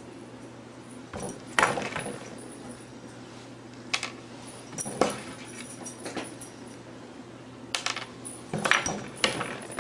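Light sharp taps and clicks of fingers and a small treat on a wooden tabletop, a few seconds apart, with a quick cluster near the end, over a faint steady low hum.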